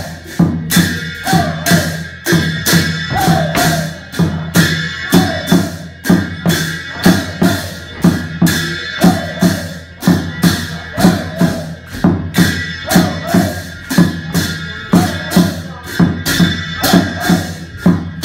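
Nepali folk dance music: a steady, driving drum beat with a short melodic phrase recurring over it.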